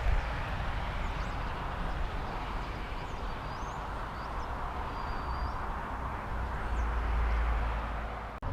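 Road traffic on the bridge overhead: a steady rumble of passing vehicles, swelling as one goes by near the end, with a few faint bird chirps.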